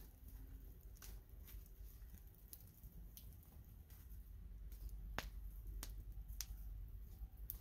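Wood campfire crackling, with sharp pops every second or so over a low steady rumble; the pops grow stronger in the second half.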